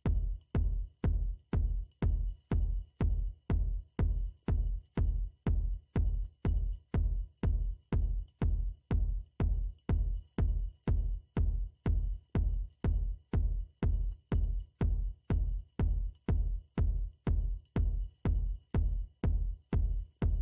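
Background electronic music driven by a steady kick drum at about two beats a second.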